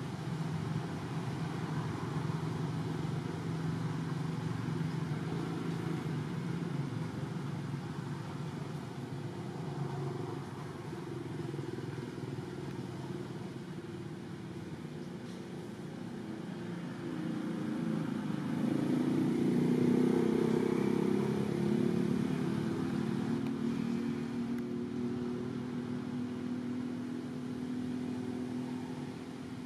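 Motor vehicle engine running with a steady low hum, swelling louder about two-thirds of the way through as its pitch slides, then easing back.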